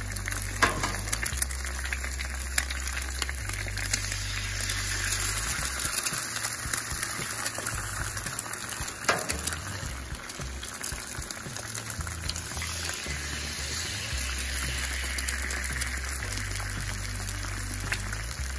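Eggs frying in bacon fat on a flat-top griddle: a steady sizzle with occasional sharp pops. Background music with a low bass line plays underneath.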